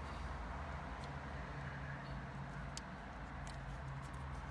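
Faint clicks of plastic wiring connectors being handled and pushed into the car stereo's quad lock connector, over a steady low hum.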